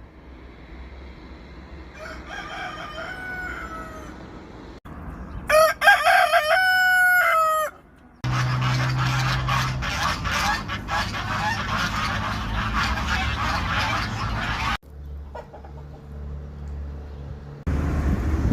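A rooster crowing twice: a faint crow about two seconds in, then a loud, close crow around six seconds in. After that comes a stretch of steady noise.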